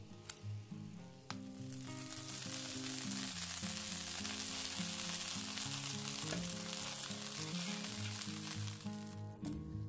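Butter sizzling in a hot ridged grill pan as it melts and is brushed around with a silicone brush. The sizzle starts sharply about a second in, holds steady, and dies away near the end.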